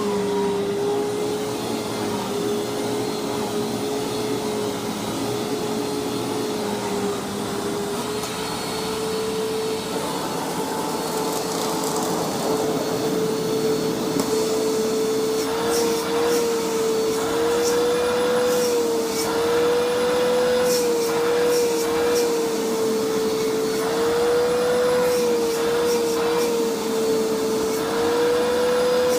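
Hoover WindTunnel Self Propelled Ultra upright vacuum cleaner running loud and steady, its motor, freshly rebuilt with a greased top bearing, giving a whine that wavers slightly in pitch over the rush of suction air. Scattered sharp ticks come through in the middle stretch.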